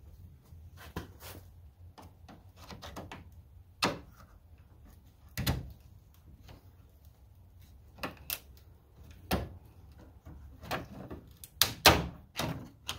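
Socket ratchet clicking and metal tools knocking against the truck's front end as 8 mm bolts are undone: scattered sharp clicks and clanks, thickest and loudest near the end.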